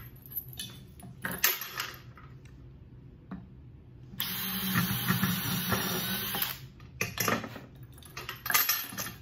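Cordless drill boring a pilot hole through a wooden board, running steadily for about two and a half seconds in the middle. Before and after it, clicks and knocks of the drill and clinks of metal hardware being handled on the table.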